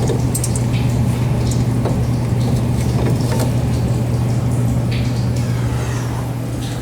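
Steady low machinery hum, with scattered light clicks and scrapes of metal plumbing parts being handled.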